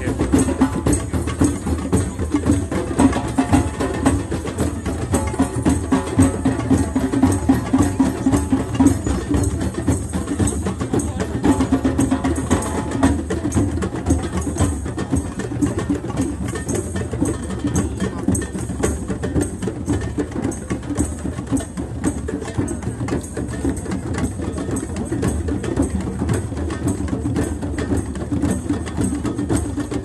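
Rhythmic hand drumming: a dense, steady stream of fast drum beats.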